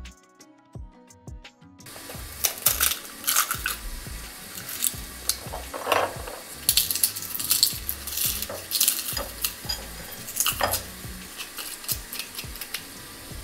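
Food sizzling in a hot pan, starting about two seconds in, with a utensil stirring it and clinking and scraping against the pan many times.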